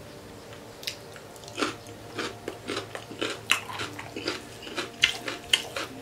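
A person chewing a mouthful of pork curry and rice close to the microphone. Short sharp mouth clicks come about twice a second, starting about a second and a half in.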